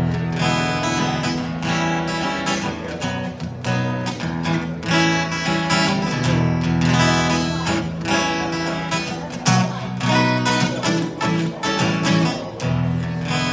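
Acoustic guitar strummed in a steady rhythm, an instrumental passage of a song without singing.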